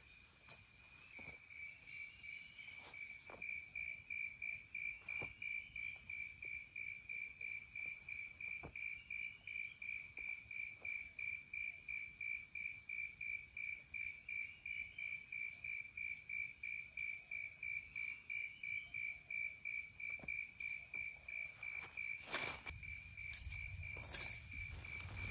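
An insect calling in a steady, high, pulsing trill, about three pulses a second, with a short upward-sliding note over it every few seconds. Faint clicks of tent handling are scattered through it, and a louder rustle and a sharp knock come near the end.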